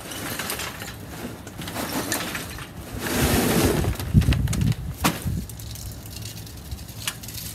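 Clatter of a steel charcoal chimney starter full of briquettes being handled on a kettle grill's grate, then two sharp clicks from a utility lighter being used to light the fire starter under it.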